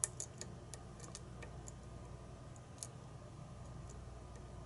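Light, irregular metallic clicks of a hook pick probing the pins of a pin-tumbler challenge lock under tension, thickest in the first second or two and sparser after, over a faint steady hum.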